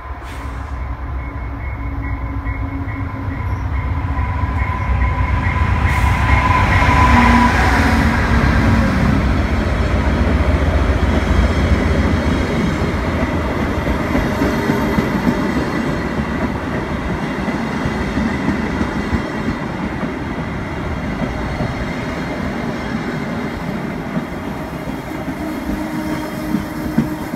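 VIA Rail passenger train passing close by: the diesel locomotive's rumble builds to its loudest about seven seconds in, then the coaches follow with a steady rumble and the clickety-clack of their wheels over the rail joints.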